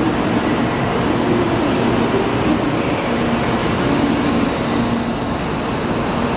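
N700-7000/8000 series Shinkansen train running past along a station platform: a steady rushing noise with a faint low hum that wavers in pitch.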